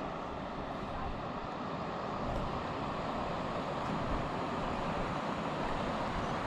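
Steady, even rushing noise with no pitch or rhythm to it.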